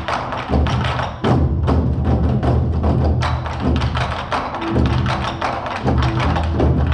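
Korean drum ensemble playing a fast, dense rhythm of drum strikes over a sustained low backing.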